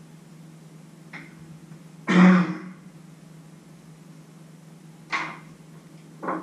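A man clearing his throat: one loud, rasping clear about two seconds in, then two shorter throat sounds about five and six seconds in, over a steady low hum.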